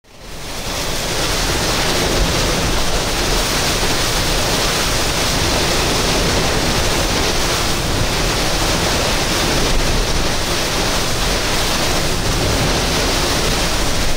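Heavy wind-driven rain and strong thunderstorm winds: a loud, steady rush with a low rumble of wind buffeting the microphone. It fades in over the first second.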